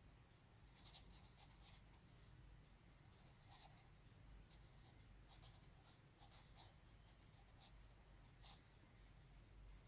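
Felt-tip marker scratching faintly across paper in a series of short, irregular colouring strokes.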